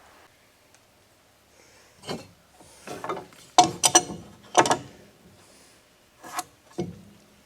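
Wooden boards being handled: a 2x6 knocking and scraping against the tongue-and-groove door boards, a run of sharp knocks and clatters between about two and seven seconds in.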